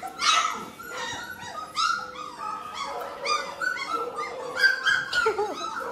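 A litter of four-week-old Labrador retriever puppies crying out with many short, high-pitched calls, several overlapping one another.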